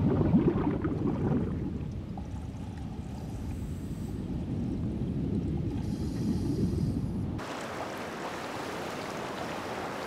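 Water noise: a low, churning rumble that cuts off about seven seconds in, replaced by a steadier, brighter hiss of water.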